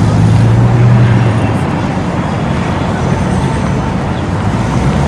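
Steady city road traffic noise, with the low hum of car engines running through it.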